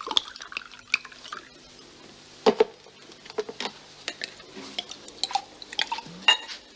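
Drinks being poured from a bottle into glasses: liquid splashing, with glass and bottle clinking. The loudest clinks come about two and a half seconds in and again near the end.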